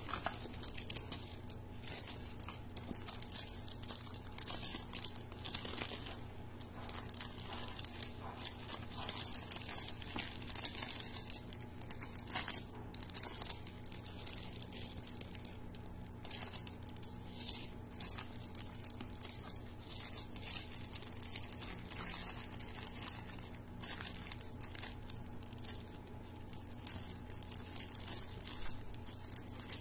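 Glossy gift-wrapping paper crinkling and rustling in irregular crackles as hands fold and press it around a box.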